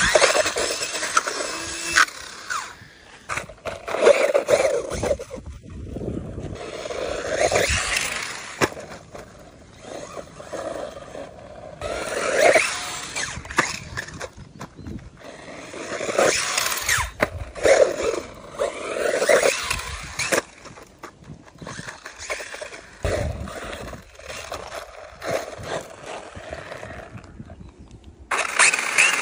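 RC off-road truggy driving over dirt and gravel in bursts: the motor and gears whine up and down with the throttle, and the tyres scrabble and knock over the ground. Near the end the car is held up and the wheels spin up loudly.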